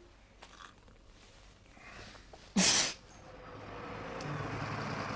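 One short, sharp burst of breath, a huff blown out through the lips, about two and a half seconds into a quiet stretch. A soft hiss swells after it toward the end.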